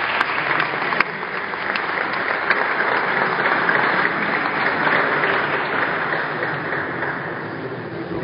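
Applause from a small audience, a crowd of hands clapping together, dying down near the end.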